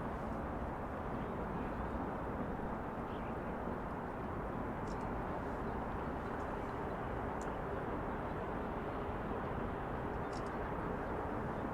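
Steady city ambience: a constant low hum of distant traffic, with a few faint brief ticks.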